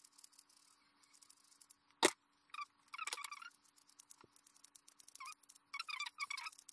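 Scissors snipping through a fur tail, trimming it round in quick runs of small cuts. There is one sharp knock about two seconds in.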